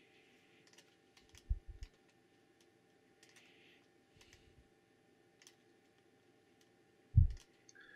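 Faint scattered clicks from working a computer, over a faint steady hum. There are a couple of soft low thumps about a second and a half in and a louder thump near the end.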